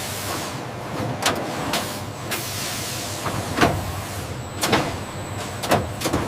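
Factory machinery running with a steady noisy hum, broken by sharp knocks and clanks about once a second.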